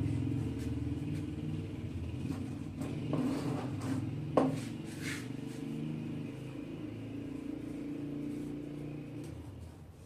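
A motor vehicle's engine running steadily, then fading gradually over the last few seconds, with one sharp click about four seconds in.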